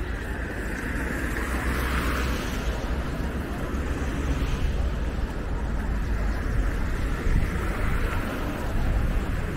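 Steady city-street traffic noise from passing buses and cars, with wind rumbling on the microphone.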